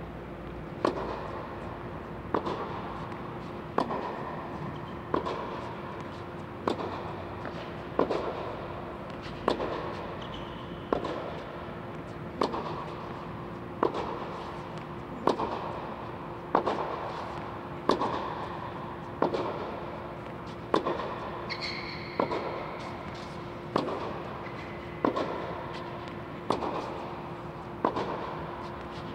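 Tennis racket strings hitting tennis balls about every one and a half seconds in a steady drill, each hit a sharp pop that echoes around the domed hall, over a steady low hum.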